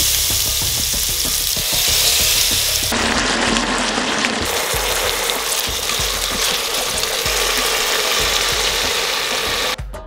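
Marinated prawns frying in hot oil in an electric pressure cooker's inner pot: a loud, steady sizzle that drops away abruptly near the end.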